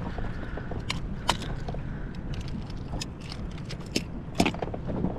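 Scattered small metal clicks and light knocks of pliers and a lure being worked out of a jack crevalle's mouth, the loudest about four and a half seconds in, over a steady low rumble.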